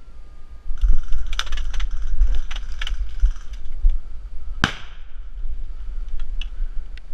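Clicks and rattles of gear being handled, then about four and a half seconds in a single sharp bang with a ringing tail from an airsoft hand grenade going off, with a few small clicks after it. A steady low rumble on the microphone runs underneath.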